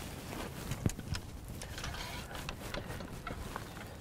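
Cleaning rod pushing a wet patch through a bore guide and down a rifle barrel: scraping with scattered light clicks and knocks. A low rumble of wind on the microphone runs underneath.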